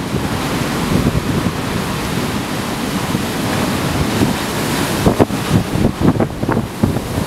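Storm surf breaking over a harbour quay wall, with strong wind blowing on the microphone. The noise turns rougher and more gusty in the last two seconds.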